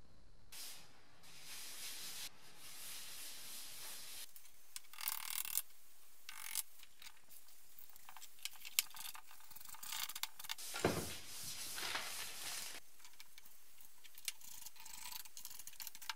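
Parts being fitted into a steel car bumper by hand: scattered sharp clicks, light knocks and scraping of metal and plastic parts, with the ratcheting of a socket wrench.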